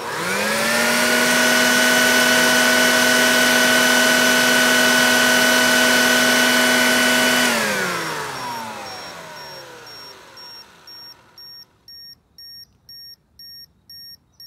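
Shop vacuum motor switched on, rising to full speed within about a second, running steadily for about seven seconds, then switched off and winding down in a falling whine. As it dies away, an EMF meter's alert beeps about twice a second.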